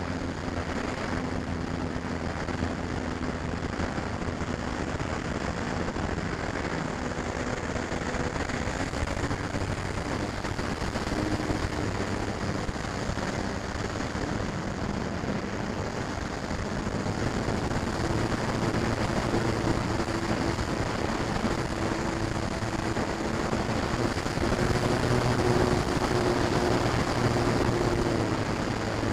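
Electric motor and propeller of a FlyZone Cessna 182 RC model plane in flight, heard from a camera on board, with rushing wind over the microphone. The motor's hum steps up in pitch about a third of the way in and again past halfway, gets louder, then drops near the end as the plane is slowed for landing.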